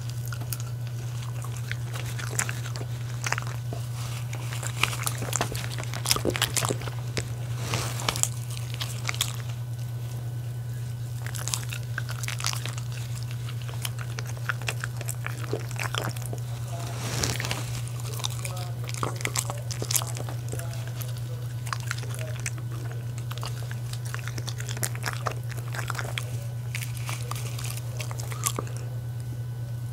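A West Highland White Terrier biting into a soft cooked dog-food donut and chewing it, with many irregular wet clicks and smacks, over a steady low hum.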